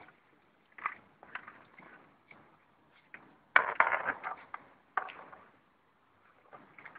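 Handling noise of a landing net holding a freshly caught pigo being hauled onto a concrete bank: separate knocks, scrapes and rustles, loudest in a clatter about three and a half seconds in.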